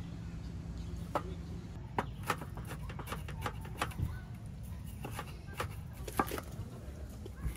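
Chef's knife striking a wooden cutting board in irregular sharp taps while chopping red onion and red pepper, over a low steady hum.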